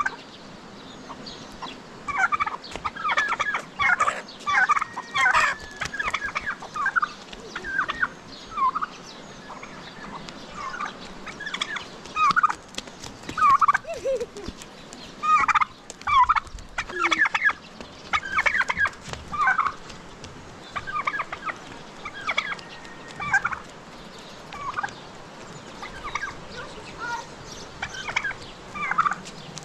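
Farmyard poultry calling over and over in short, rapid bursts, with a few brief lulls.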